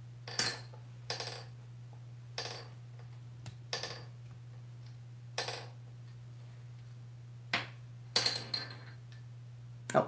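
An African grey parrot knocking a wooden drumstick against a hard marble counter and sink: about seven sharp clinking taps with a brief ring, irregularly spaced, two close together near the end, over a steady low hum.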